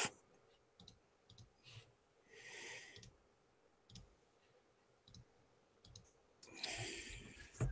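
Faint computer mouse clicks, a handful scattered at uneven intervals. A soft hiss comes about two and a half seconds in, and a louder one near the end.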